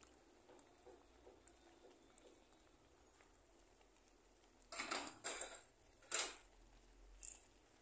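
Quiet kitchen sounds of vegetables being stirred in a frying pan: a couple of short scraping, rustling bursts about five seconds in, then a sharper clatter of the utensil on the pan about a second later, the loudest sound.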